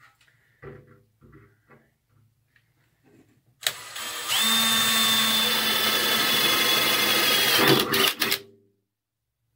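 A few light knocks and handling clatter, then an electric drill runs for about four seconds with a steady high whine, drilling into the steel toolbox, and stops.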